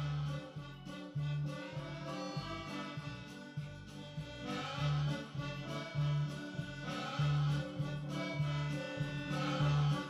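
Instrumental background music with a steady, rhythmic bass line.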